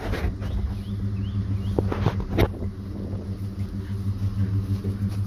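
An engine running steadily at idle, a low even hum, with a couple of light knocks about two seconds in.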